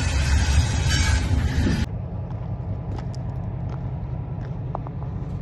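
Railway train sound: a loud, full sound cuts off abruptly about two seconds in, leaving a steady low rumble with a few faint clicks.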